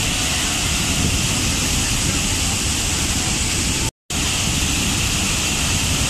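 Large waterfall in heavy flow, its water crashing into the plunge pool below: a loud, steady rush of white noise with a deep rumble underneath. The sound cuts out to silence for a split second about four seconds in, then resumes unchanged.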